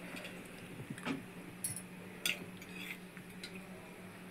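A few light clinks of a steel spoon against a steel cup and the kadai as cooking oil is spooned into the pan, over a faint steady hum.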